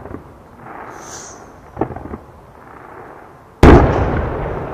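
A 600 mm (24-inch) fireworks shell detonating inside its mortar, a mortar burst, heard as one sudden, very loud boom about three and a half seconds in, with a rumbling echo trailing off after it. A few lighter pops come before it.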